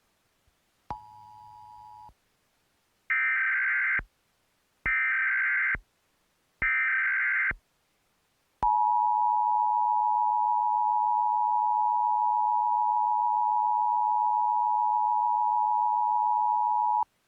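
Emergency Alert System tones: a faint short beep about a second in, then three loud bursts of SAME digital header data about a second each, then the steady two-tone EAS attention signal held for about eight seconds. This is the start of an EAS test alert.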